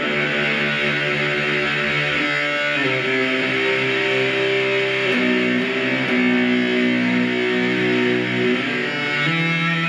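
Electric guitar played through the Stomp Box Fuzz pedal: thick, fuzzed notes held and sustained, moving to a new pitch every second or two.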